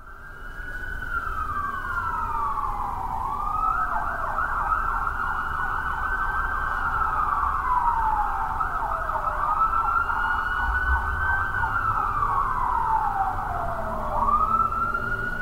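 Emergency vehicle siren wailing, slowly rising and falling about every five seconds, with a faster yelping warble laid over it between about 4 and 9 seconds. A low rumble of city traffic runs underneath.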